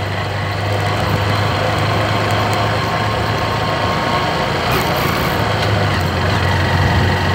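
Motorcycle engine running steadily while riding: a constant low hum under a broad rush of wind noise.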